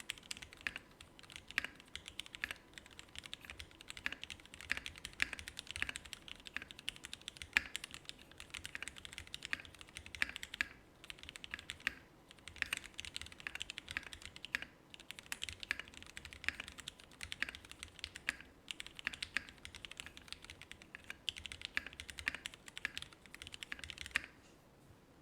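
Typing on a 60% mechanical keyboard with a polypropylene plate on gummy O-ring mounting, fitted with lubed linear Hyperglide black switches and PBT keycaps: a fast, continuous run of muted clacks with a few brief pauses. The typing stops about a second before the end.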